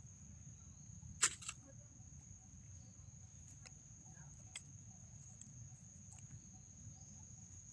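Steady high-pitched insect drone over a low rumble, with one sharp click about a second in and two fainter ticks later.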